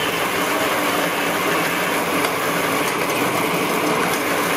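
Nut-tapping machine running steadily, its spindle driving a tap to cut threads into iron nut blanks: an even mechanical noise with a few faint clicks.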